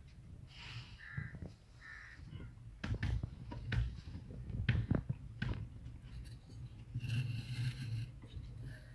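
Crows cawing, two short harsh calls about a second in, over a low steady hum. Several sharp knocks follow a few seconds in, and near the end comes a scraping hiss as a metal tool is held against a clay pot turning on a potter's wheel.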